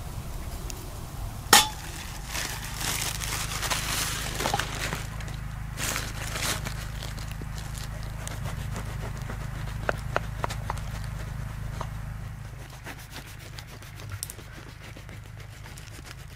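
A knife sawing through a crusty loaf on a wooden cutting board, giving crunchy scraping and scattered ticks as the blade meets the board. A single sharp metal clink comes about a second and a half in.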